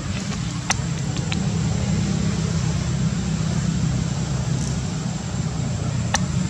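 A steady low motor hum, like an engine running nearby, with a thin high steady tone above it and a few faint clicks.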